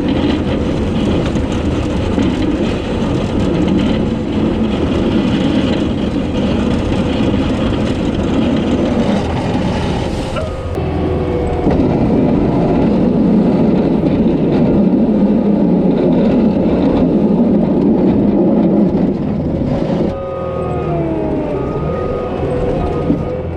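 Diesel engine of heavy snow-clearing equipment working hard and steadily. About twenty seconds in it eases off a little, and whining tones slide up and down in pitch.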